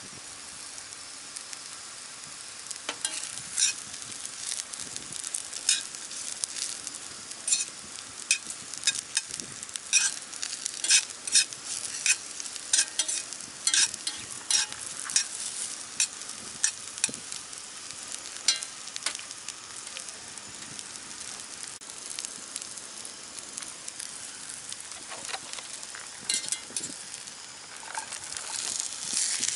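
Sliced mushrooms sizzling in a frying pan, with repeated sharp clicks and scrapes of tongs stirring them against the pan. Near the end, the sizzle gets louder as chopped peppers go in.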